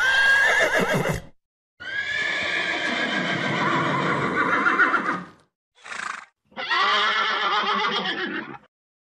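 Horses whinnying: four separate whinnies, the second long and quavering, the third short.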